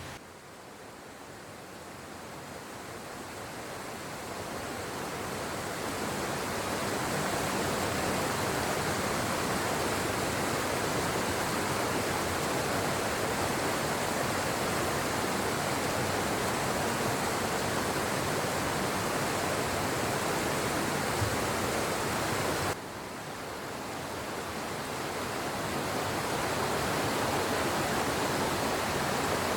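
Steady rush of flowing water, fading up over the first several seconds. It drops abruptly about three-quarters of the way through and fades up again.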